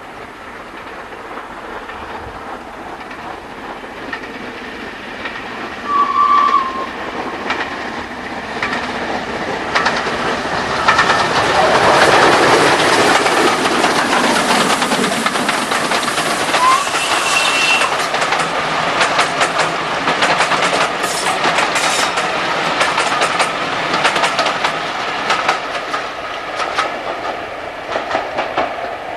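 Gresley A3 three-cylinder steam locomotive 4472 Flying Scotsman working a train past at close range. Its sound builds to a peak as the engine passes, with a short whistle blast about six seconds in, then the carriages clatter past over the rail joints.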